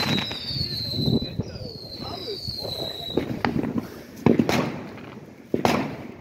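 New Year's Eve fireworks going off all around. High-pitched whistles fall slightly in pitch and overlap through the first three seconds, among scattered bangs and crackling, with a loud bang about four seconds in.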